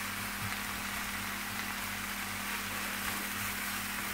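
Dandelion greens with onion and garlic sizzling steadily as they fry in oil in a pan, stirred with a wooden spatula, over a steady low hum.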